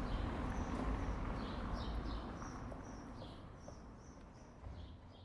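Small birds chirping in short repeated calls over a low, steady urban hum, the whole fading out over the last few seconds.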